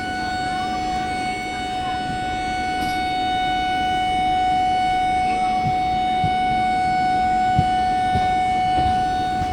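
WDG4D diesel locomotive's horn sounding one long, steady blast on a single pitch for about ten seconds. It cuts off at the end, over the faint low drone of the engine.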